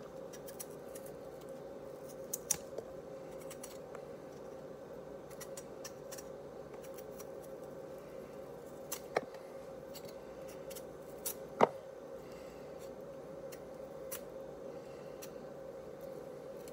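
Handheld potato peeler scraping peel off a raw potato in irregular strokes, with a few sharp clicks, over a faint steady hum.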